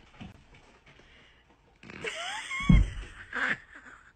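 A cat jumping down from a cat tree and landing on the floor with a heavy thump about two-thirds of the way in, with a few short squeaky rising and falling glides just before it and a lighter thump after.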